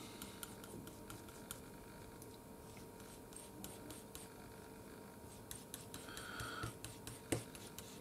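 Metal palette knife scraping and tapping on a palette while mixing oil paint to an even blend: faint, with many small ticks and a sharper tap about seven seconds in.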